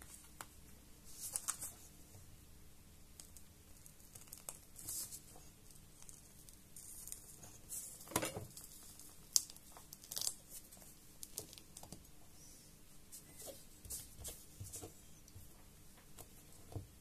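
Light crinkling, rustling and small scattered clicks from hands handling a laptop display panel and its thin metal brackets.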